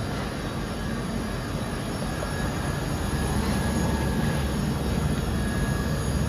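Micron VCP 710 vertical machining centre running, a steady mechanical noise that grows a little louder about three seconds in.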